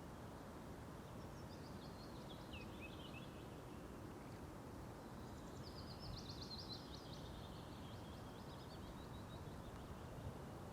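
A small songbird sings twice, each time a quick, high run of notes falling in pitch, the second run longer, over a steady low outdoor hiss.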